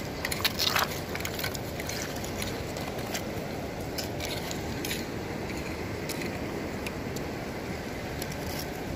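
Small shells clicking and scraping together as they are handled and gathered, most densely in the first second, over a steady rushing noise.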